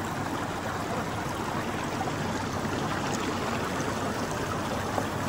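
Steady rush of a mountain river flowing close by.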